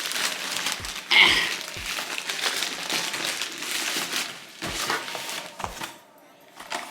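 Packaging from an Amazon delivery being handled and unwrapped: crinkling and crackling of plastic or paper wrapping, with a louder rustle just after a second in and a few dull thumps of the box or items.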